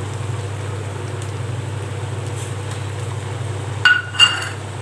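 Pineapple curry simmering in a steel pan, heard as a steady low hum and hiss. About four seconds in come two short, ringing clinks of metal on metal, as a steel bowl and ladle touch the pan.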